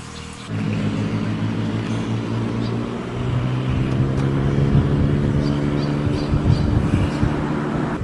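A motor vehicle's engine running steadily at low revs, its pitch stepping up about half a second in and again about three seconds in, and sounding rougher in the second half.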